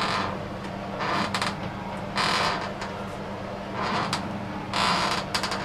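Floor of an acrylic bathtub creaking five times, about a second apart, as a person's weight shifts on it: the tub bottom flexing because it has no mortar or plaster of Paris bed underneath. A steady low hum runs beneath it.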